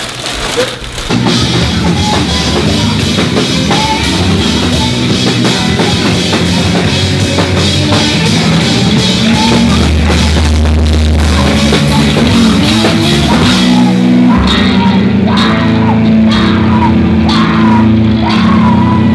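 Heavy rock band playing loudly: drum kit and distorted guitars, with regular pounding drum hits in the last few seconds.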